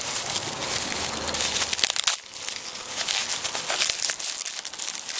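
Plastic bubble wrap crinkling and crackling as hands unwrap it from a small box, a dense run of quick crackles.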